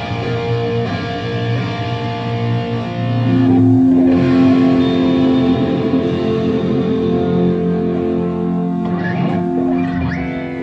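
Rock band playing live with electric guitars and bass holding long, ringing chords. A louder chord comes in about three seconds in. The chords sustain toward the song's close.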